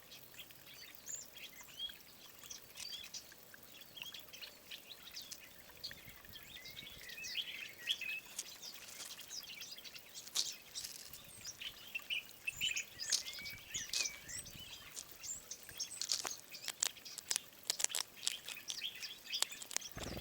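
Small birds chirping: many short, overlapping calls and twitters, mixed with sharp clicks, growing busier from about seven seconds in.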